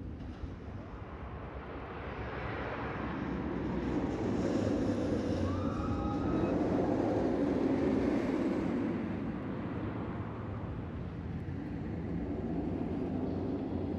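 Rumble of a passing vehicle that swells over several seconds and then fades.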